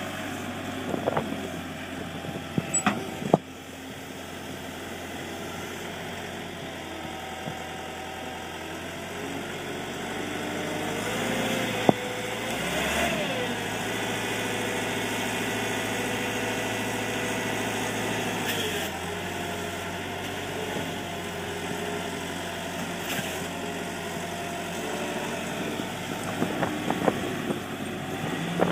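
Diesel engine of a Zettelmeyer ZL 1001 wheel loader running steadily. Its revs rise for several seconds near the middle as the hydraulics work the Redrock silage block cutter, then settle again. A few sharp knocks come early and again near the middle, with some clattering near the end.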